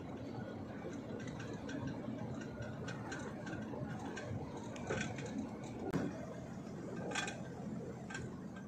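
Lorry on the move, heard from inside its cab: a steady running noise with scattered light clicks and rattles.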